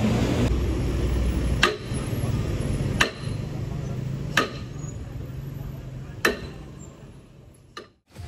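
Sledgehammer striking metal at a truck's rear wheel, five blows about every one and a half seconds, each with a short ring, over a low engine hum that fades out near the end.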